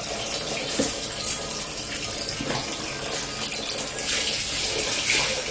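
Water pouring and splashing into a bowl of rice being washed, a steady rushing that grows a little louder about four seconds in.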